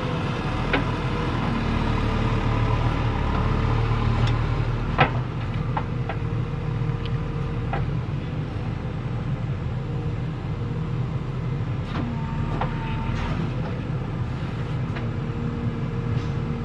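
Heavy machine's diesel engine running steadily with a low drone, with a few sharp knocks, the loudest about five seconds in.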